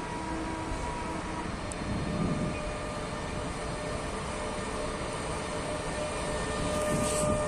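EP20 electric locomotive pulling a passenger train away from the station, a low rumble under steady electric whine tones from its traction equipment. It grows louder near the end as it draws closer, with a short hiss just before the end.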